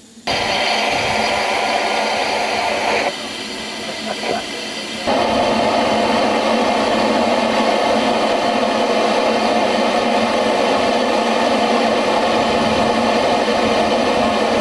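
Ffestiniog Railway double Fairlie steam locomotive Merddin Emrys letting off steam: a loud, steady hiss that starts suddenly. It drops lower for a couple of seconds about three seconds in, then comes back full and cuts off suddenly at the end.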